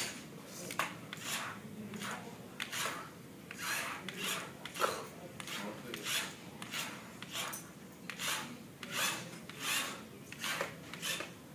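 Repeated scratchy rubbing or scraping strokes, unevenly spaced at about one or two a second.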